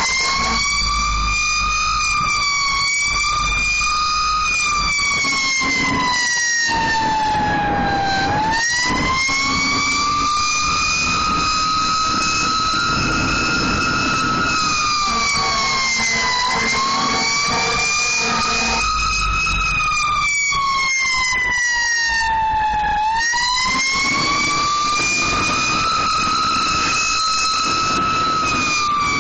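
Emergency vehicle siren wailing, its pitch sinking slowly for several seconds and then climbing back up, about three times, over a low engine rumble.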